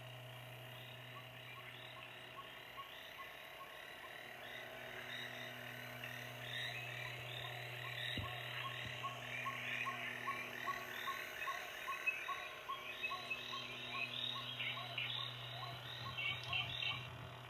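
A chorus of short croaking calls, frog-like, repeated a few times a second and growing denser from about five seconds in, with a thick cluster near the end, over a steady low hum. A single sharp click comes about eight seconds in.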